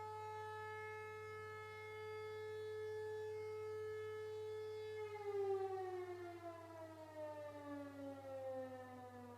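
Civil-defence siren sounding a test of the signal that calls out local emergency personnel. It holds one steady tone, then about five seconds in its pitch starts falling steadily as it winds down.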